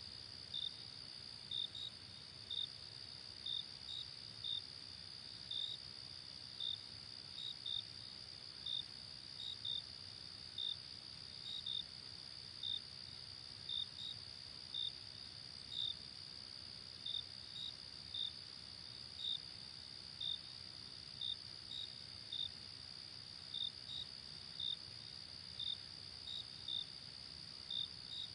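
Crickets chirping at night: a steady high trill underneath, with a louder chirp repeating about once a second, sometimes two close together.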